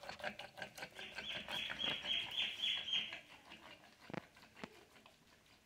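A wooden churner twirled between the palms, mashing cooked spinach greens in a stone kal chatti: rhythmic churning strokes, about four a second, that stop about three seconds in, followed by two light knocks.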